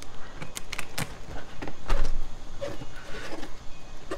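Hands pulling at and turning a large head of cabbage softened in hot water. Its leaves crackle and snap irregularly as they are peeled back from the head.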